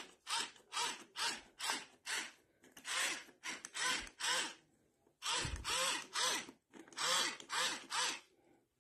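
Hand-twisted pepper mill grinding black peppercorns: a quick series of grinding turns, about two to three a second, pausing briefly twice.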